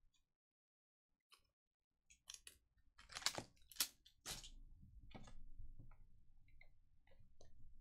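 Trading cards being handled: faint clicks and rustles of stiff cards being laid down and gathered into a stack, starting about two seconds in, with a few sharper clicks near the middle.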